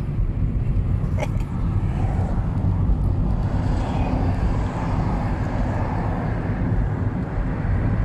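Steady low road and engine noise inside a moving car's cabin, with a brief click about a second in.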